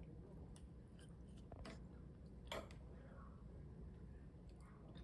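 Near silence: faint room tone with a few soft small clicks, one slightly louder about halfway through.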